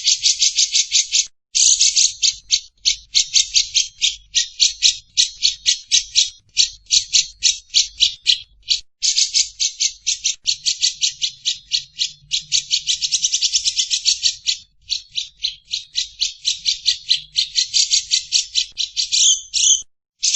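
A bird's long, rapid series of harsh, chattering notes, about five to eight a second, broken by a few short pauses and quickening near the middle.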